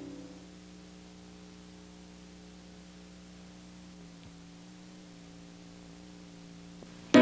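Faint steady electrical hum with a low hiss from the blank stretch of an old videotape recording, as the preceding music fades out in the first moment.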